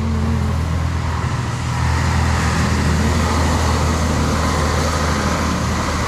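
Heavy tanker truck with a tank trailer driving past on a wet road: a low engine rumble with tyre noise that swells about two seconds in and stays steady.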